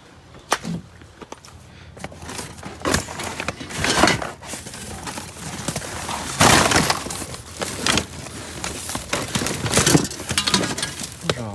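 Discarded electronics and scrap being rummaged through in a dumpster: hard parts clattering, scraping and knocking against each other in an irregular string of crashes, with a few louder ones along the way.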